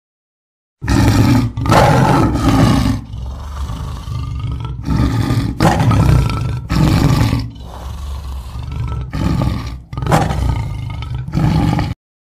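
Big cat roaring, a run of about ten deep, loud calls in close succession, each around a second long. It starts abruptly about a second in and cuts off abruptly near the end.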